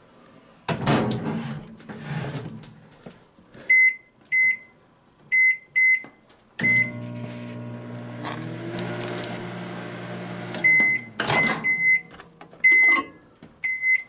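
Oster microwave oven, working again after its blown fuse was replaced: the door shuts, four keypad beeps, then the oven runs with a steady humming drone for about four seconds. It stops with a series of beeps and the door is opened.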